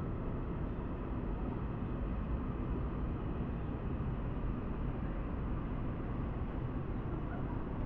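Steady outdoor street ambience around a busy railway station: an even, low rumble of distant traffic and general background noise, with no single sound standing out.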